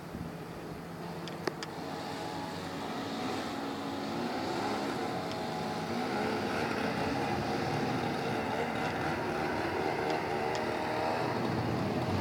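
Motor vehicle engine approaching, growing steadily louder.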